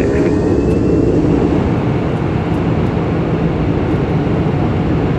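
Airbus A340's four jet engines running at takeoff thrust at the start of the takeoff roll: a loud, steady, deep rumble.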